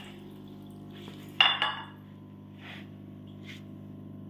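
A sharp clink of a container being knocked, about one and a half seconds in, followed by two fainter knocks, over a steady low hum.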